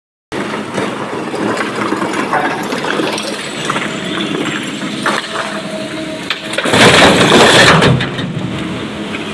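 A SANY excavator's diesel engine and hydraulics run with scattered rock clatter as the loaded bucket swings. About seven seconds in, a loud crash of broken stone lasting about a second as the bucket dumps its load into a steel dump-truck body.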